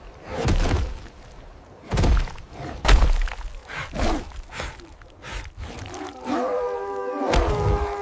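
Heavy cinematic impact sound effects: about four deep thuds in the first half. Then a drawn-out, pitched wailing cry with several tones at once, sliding slightly downward near the end.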